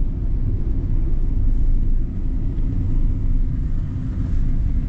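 Steady low rumble of a car on the move, heard from inside the cabin: tyre and engine noise.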